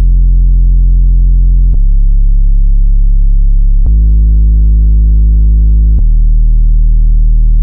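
Loud, very low-pitched electronic test tone with a buzzy hum, played to vibrate a laptop speaker's cone and shake spilled water out of it. The tone jumps to a new pitch about every two seconds, with a faint click at each change.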